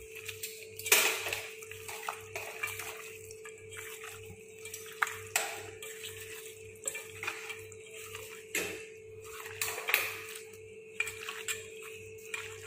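Raw chicken pieces being mixed by hand with onion and spice paste in a stainless-steel bowl: wet squelching with irregular clicks and taps against the steel. A steady faint hum runs underneath.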